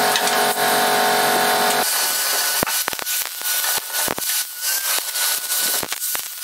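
A steady machine drone with several held tones, which cuts off sharply about two seconds in. Then an angle grinder works the steel of a car body: an uneven scraping grind with a thin steady whine and frequent sharp clicks.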